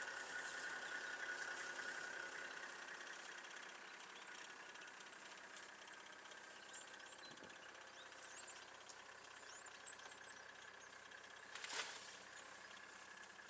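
Faint low hum of the ranger's stationary vehicle engine, with small high chirps scattered through the middle and a single sharp knock near the end.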